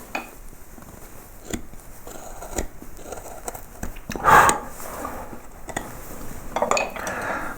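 Small hand carving gouges paring wood in short, crisp cuts, with a louder scrape about four seconds in.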